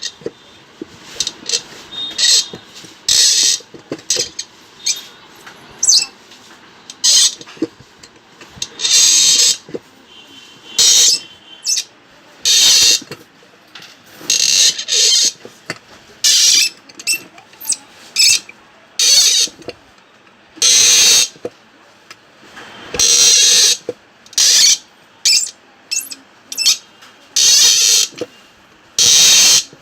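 Hand thread tap cutting a thread into a drilled hole in a pressure cooker's handle bracket, worked forward and back in short turns so it doesn't break. It gives many short, high scraping squeaks of metal on metal, one or two a second, some held a little longer.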